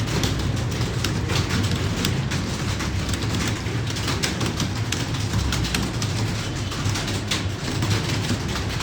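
Many computer keyboards being typed on at once, a dense, irregular patter of key clicks, over a steady low hum.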